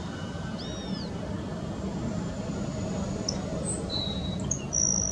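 Steady low rumble of an Airbus A320neo's Pratt & Whitney PW1100G geared turbofan engines as the airliner rolls along the runway, with small birds chirping over it, the loudest a short high chirp near the end.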